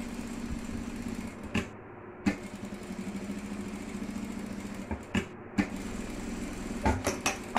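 Electric sewing machine running steadily while topstitching alongside a zipper, a steady hum with a fast fine rattle of stitches. Several sharp clicks break in, two near the start, two in the middle and a cluster near the end.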